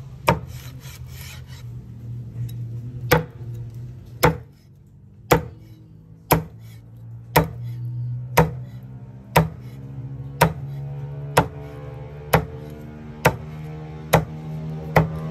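Heavy cleaver chopping through crispy pork belly on a cutting board, each stroke crunching through the crackling and knocking on the board. About fourteen chops, mostly about a second apart, with a longer pause after the first.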